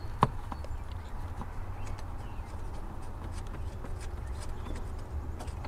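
Faint scattered clicks and light metal taps from hands and a tool working at the parking-brake pedal assembly, one sharper click about a quarter second in, over a steady low hum.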